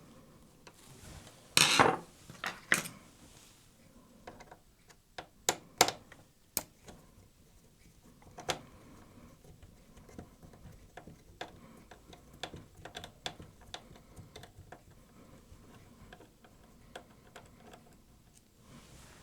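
Irregular clicks, taps and light clinks of hand tools and small plastic and metal parts being handled inside an opened DVD/VCR player. The loudest is a cluster of sharp knocks about two seconds in, followed by scattered single clicks and softer ticks.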